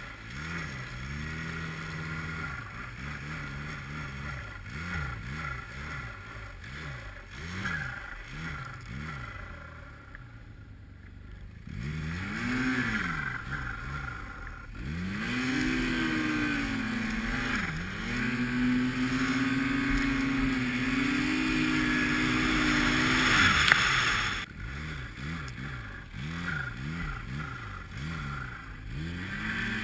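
240-horsepower Arctic Cat snowmobile engine revving up and down in quick throttle blips, then held at high revs for about eight seconds in the middle before dropping off abruptly and blipping again.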